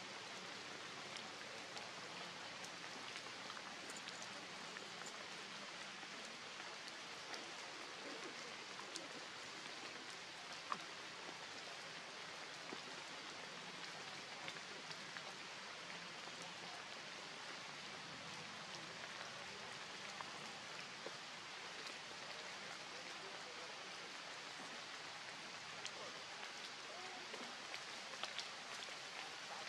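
Rain falling steadily on leaves and the forest floor, an even hiss with scattered drip ticks and one sharper tick about ten seconds in.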